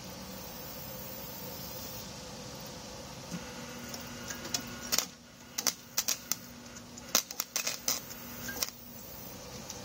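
Campbell Hausfeld wire-feed welder welding the corner of a steel angle-iron frame: irregular sharp crackles and pops of the arc for about five seconds, starting about three seconds in, over a steady hum.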